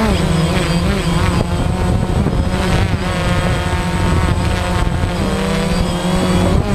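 DJI Phantom quadcopter's motors and propellers whining steadily in flight, heard up close, with the pitch wavering now and then as it manoeuvres.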